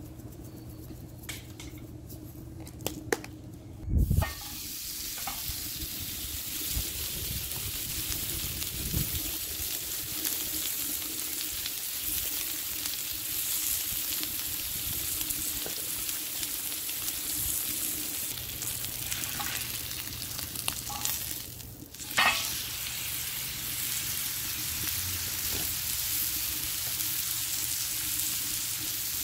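Bone-in ribeye steak sizzling on a very hot ridged griddle over a rocket stove: a steady, bright hiss that starts with a thump about four seconds in. Before that come a few light clicks of seasoning being put on the raw steak, and near the end there is a brief break and another knock.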